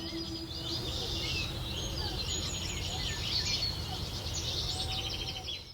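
Several small birds singing and chirping at once, many quick overlapping trills, over a low steady rumble of outdoor background noise; it all fades out at the very end.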